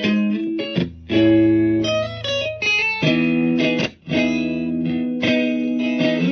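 Electric guitar played through an effects pedal: a run of sustained chords and notes, each ringing about a second, with brief breaks between phrases.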